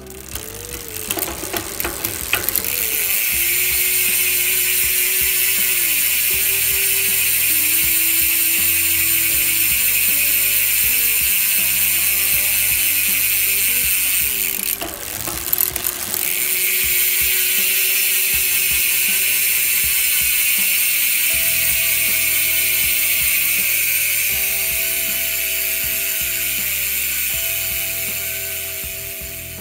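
Rear bicycle hubs coasting at speed, the freehub pawls clicking so fast that they merge into a loud, steady buzz. One hub gives way to another after a short break about halfway through; among them is a SRAM X0 hub.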